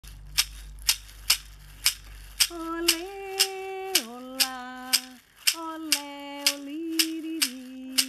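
Hand-held gourd rattles shaken in a steady beat, about two sharp shakes a second. From about a third of the way in, a woman hums a simple tune over them in long held notes that step up and down.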